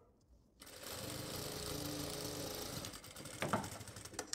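Industrial sewing machine running steadily for about two and a half seconds as it stitches a shoulder seam, then stopping. Near the end come a few sharp clicks, the last the loudest: scissors snipping the thread.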